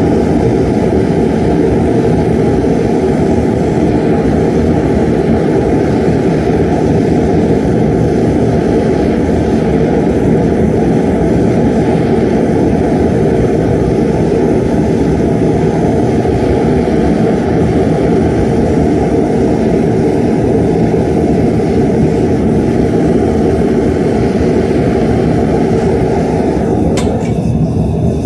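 Gas burner of a metal-melting furnace running steadily, firing a crucible of aluminum scrap. Near the end a single short metallic clank as the steel lid is set on, after which the burner sounds a little more muffled.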